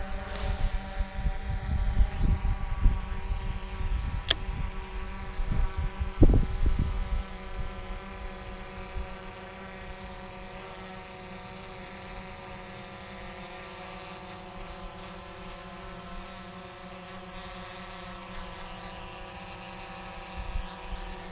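Quadcopter drone's propellers giving a steady hum, with low wind rumble and a couple of knocks in the first half that die away after about eight seconds.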